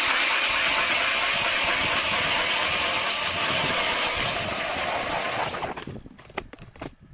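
Cordless drill driving a hand ice auger down through lake ice: a steady whirring grind that stops about six seconds in, followed by a few light knocks.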